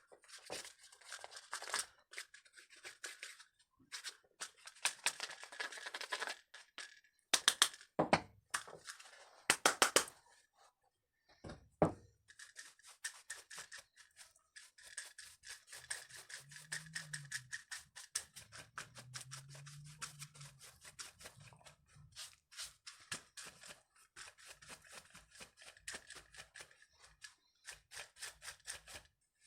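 Stiff brush scrubbing a Stihl MS 181 chainsaw part clogged with chain oil and dust, in quick, scratchy back-and-forth strokes, with a few sharper knocks between about 8 and 12 seconds in.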